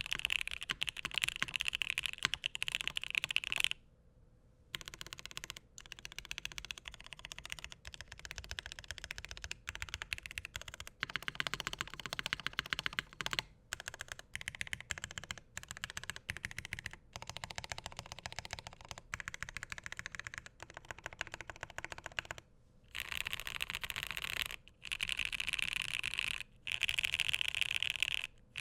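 Continuous fast typing on a Ciel Bakeneko60 custom 60% keyboard with Alpaca linear switches, an aluminum plate and GMK keycaps, a dense run of keystroke clacks broken by a few brief pauses.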